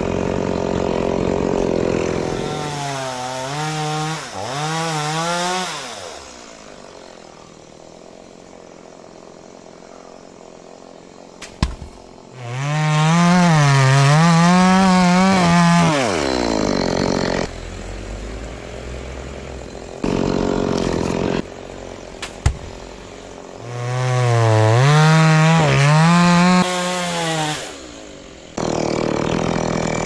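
Stihl two-stroke chainsaw revved in three bouts of a few seconds each, its pitch wavering up and down, falling much quieter between the bouts.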